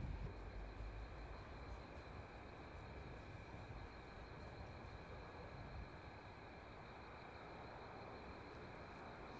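Faint night ambience of crickets chirping steadily.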